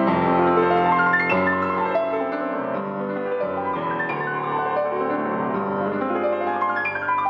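Fazioli F183 grand piano played: full chords and a moving melody over low bass notes that change every second or two, the notes ringing on with sustain.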